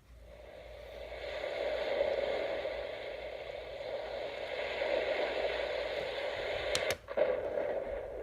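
Steady white-noise-style hiss from a sleep-aid sound track, fading in over the first second or two, with a brief click and dropout about seven seconds in.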